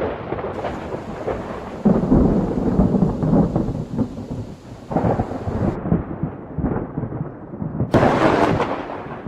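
Thunder rumbling during a thunderstorm, with rain. The rumble swells again about two seconds in and again about five seconds in, with a sharper, brighter clap near the end.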